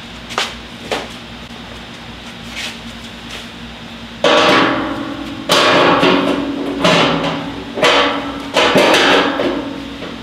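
A body hammer striking a stainless-steel grill panel, reshaping the sheet metal. There are a few light taps, then about five hard blows about a second apart in the second half, each leaving the panel ringing.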